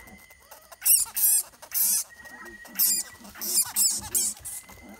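Animal snuffling and squeaking in about seven short, loud bursts: a dog sniffing and snorting at a bat on the ground, with rapid squeaky chatter among the bursts.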